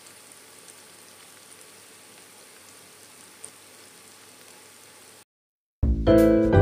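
Chicken pieces deep-frying in hot oil: a steady, quiet sizzle with faint crackles that cuts off suddenly about five seconds in. Loud piano music starts near the end.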